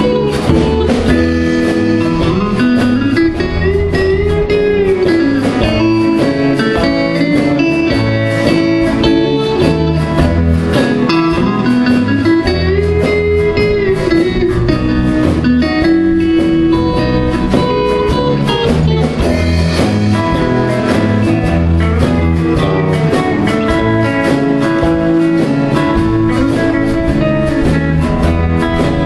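Live country band playing an instrumental break with no vocals: a hollow-body electric guitar plays lead over acoustic guitar rhythm and bass. It includes two long notes that bend up and back down.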